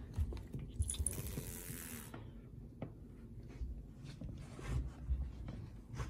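A cat chewing and crunching a dragonfly, with small crisp crunches scattered through. A rustling burst comes about a second in, and there are a few dull low bumps.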